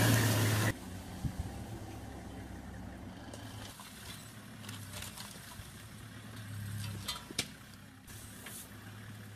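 Vehicle engine idling: a low, steady hum, louder for the first moment and then quieter, with a few faint clicks about seven seconds in.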